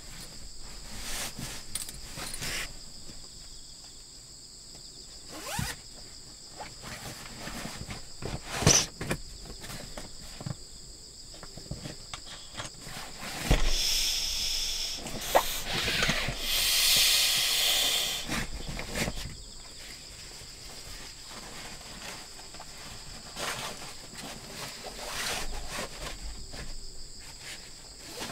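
Nylon fabric rustling and crinkling as a sleeping bag and a Coleman inflatable sleeping pad are handled and stuffed into sacks. About two seconds into the middle of the stretch, a several-second hiss of air rises as the pad is pressed flat. Insects trill steadily in the background.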